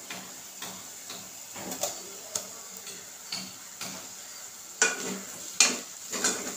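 Mutton spleen pieces going into onions frying in oil in an aluminium pressure cooker: a soft sizzle, with scattered clicks and knocks of a metal spoon against the pot as they are stirred. The knocks are loudest about five seconds in.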